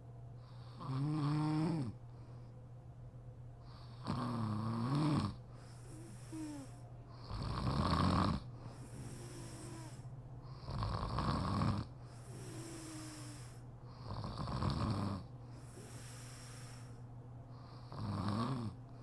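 A sleeping woman snoring, six snores about three seconds apart, several of them with a wavering, moan-like pitch.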